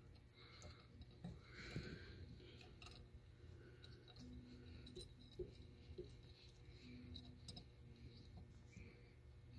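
Faint clicks and light scraping as a raw water pump's cover plate is turned and lifted off by hand, over a low steady hum.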